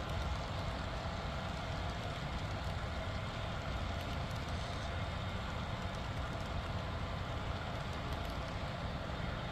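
Model freight train of piggyback trailer flatcars rolling past on the track: a steady rumble with faint clicking from the wheels.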